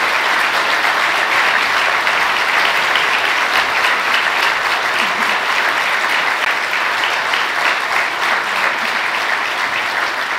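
Audience applauding, a steady sustained round of clapping.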